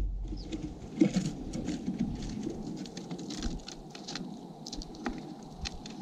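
House finches and a dark-eyed junco pecking and shuffling in sunflower seed and cracked corn on a wooden platform feeder close to the microphone: quick irregular ticks and rustling, with a thump about a second in.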